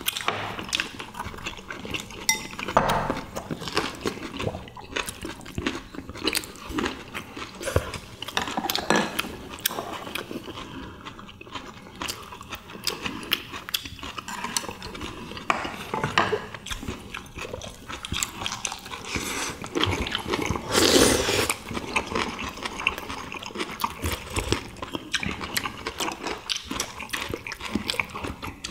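Close-up eating sounds from several people: chewing and lip-smacking, with chopsticks clicking against bowls and plates. A louder, longer noise of about a second comes about two-thirds of the way in.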